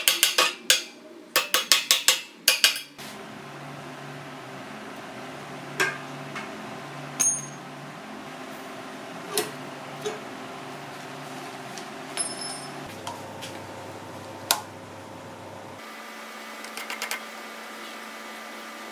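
Workshop tool sounds: a quick, even run of sharp strokes, about four a second, for the first few seconds. Then a steady machine hum with scattered clinks and taps.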